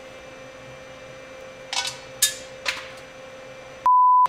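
Three sharp metallic clinks of small steel parts being handled at a boring and surfacing mill's spindle during a tooling changeover, over a steady electrical hum. Near the end a loud, steady 1 kHz test tone cuts in abruptly.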